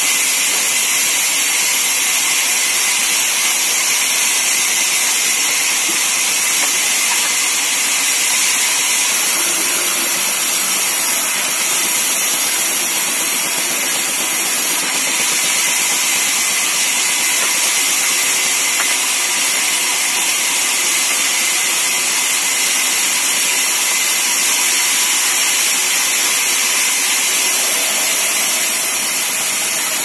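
Large sawmill band saw running, its blade cutting timber fed along the table. The noise is loud and steady, with no pauses.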